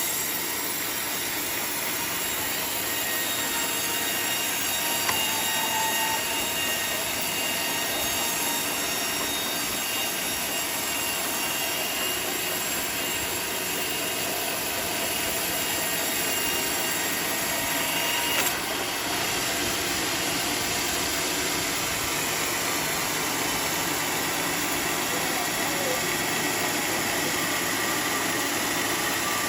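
Sawmill saw cutting through a teak log: a steady high whine of the blade in the wood over the machine's running.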